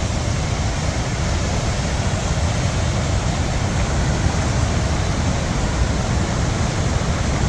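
Steady roar of Gullfoss waterfall in full spray, with wind buffeting the microphone in a low, fluttering rumble.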